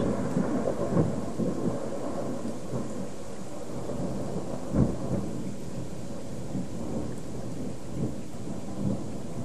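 Thunderstorm: the rumble of a close thunderclap dies away over the first couple of seconds, leaving steady rain falling, with a brief knock about five seconds in.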